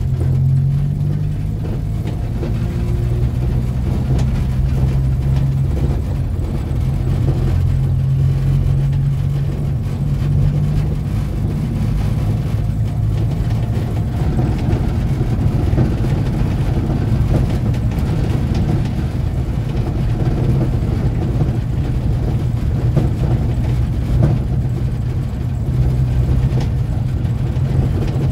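Renault 4's four-cylinder petrol engine running as the car drives along, heard from inside the cabin with road noise. The engine note holds steady for about the first ten seconds, then turns rougher and more uneven.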